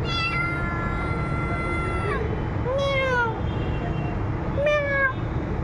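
A domestic cat meowing twice, each meow rising and then falling in pitch, over a steady low rumble. A long steady high tone runs through the first two seconds.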